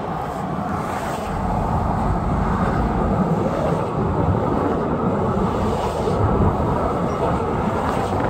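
Steady road noise and rumble of a moving car heard from inside the cabin, getting a little louder about a second and a half in.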